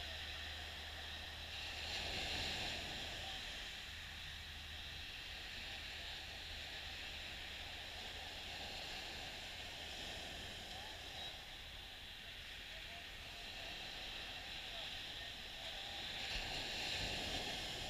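Small, gentle waves breaking and washing up a sandy beach: a steady hiss of surf that swells about two seconds in and again near the end.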